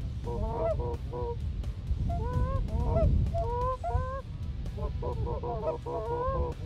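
Canada goose honking and clucking: a string of short, rising honks, with quick runs of clucks about half a second in and again from about five seconds in, over a low rumble.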